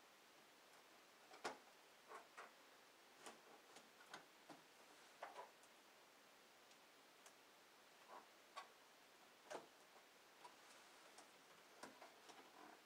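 Faint, irregular snips and clicks of scissors cutting open a cardboard box, coming every half second to a second and a half.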